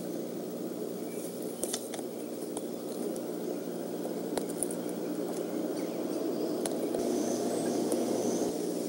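Steady low rumble of a passing road vehicle, growing louder over the last few seconds, with scattered sharp clicks and a few faint high chirps near the end.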